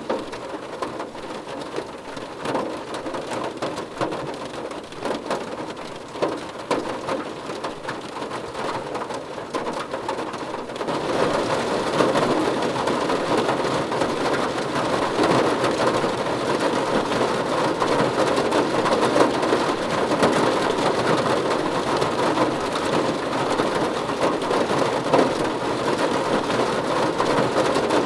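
Rain falling on a car roof, many separate drop hits at first; about eleven seconds in it grows louder and denser into steady heavy rain.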